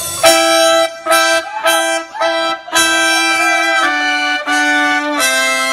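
Live band music led by a trumpet-like melody: a run of short repeated notes on one pitch and one longer held note, then the line steps down in pitch twice near the end.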